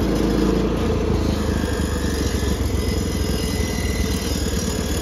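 John Deere 210 garden tractor's 10-horsepower Kohler single-cylinder engine running steadily as the tractor drives across grass in second gear.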